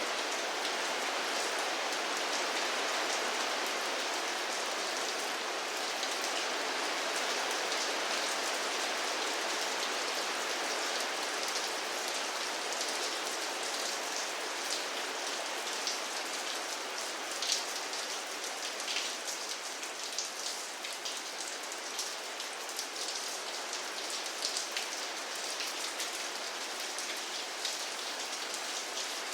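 Steady rain falling, an even hiss of rainfall with many individual drops pattering on a hard surface, the drop ticks growing more frequent in the second half.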